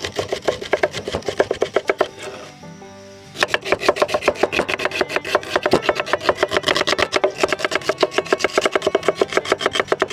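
Kitchen knife chopping red chillies and then shallots on a wooden cutting board: rapid, even knocks, several a second, with a break of about a second just after two seconds in.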